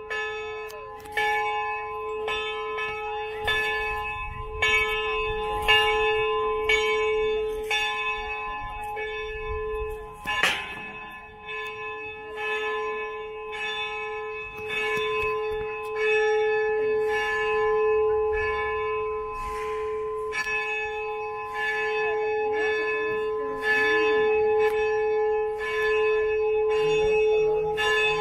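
Church bell tolling, struck about once a second, its ringing carrying on steadily between strokes: the bell calling people to Mass, which is about to begin.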